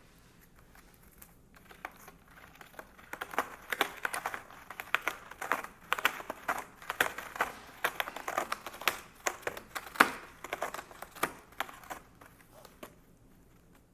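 A cat clawing a scratching post: after a short quiet start, a fast, irregular run of scratchy raking strokes with sharp crackles, dying away near the end.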